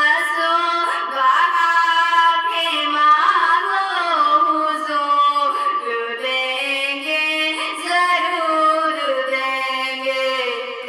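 A solo female voice singing a naat in long, held, ornamented melodic lines.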